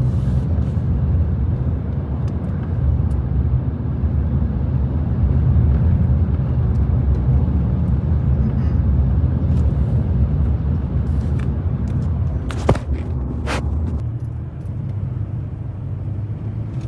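A car driving, heard as a steady low rumble of engine and road noise, with a couple of brief clicks about thirteen seconds in.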